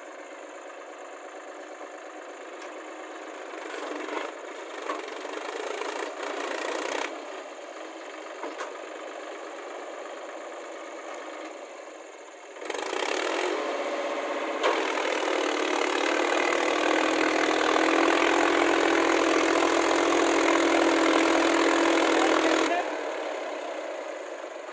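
Mahindra Yuvo tractor's diesel engine pulling a loaded farm trailer across a soft field. It works harder about halfway through, runs loud and steady under load, then eases off near the end.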